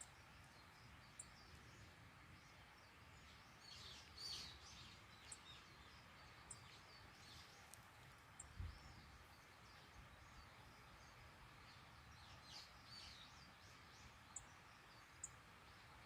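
Quiet outdoor background with a faint steady hiss and two brief flurries of soft high chirps, one a few seconds in and one past the middle. A few tiny ticks and a soft low thump come just after halfway.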